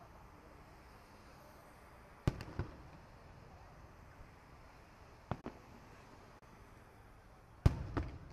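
Aerial firework shells bursting: three sharp booms roughly two and a half seconds apart, each followed a moment later by a softer second bang. The middle one is fainter than the other two.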